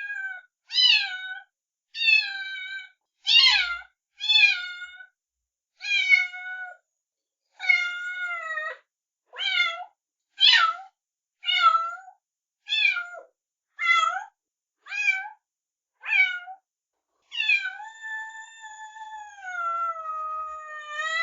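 Kitten meowing: a string of short, high-pitched meows about one a second, then one long, drawn-out meow that slowly falls in pitch near the end.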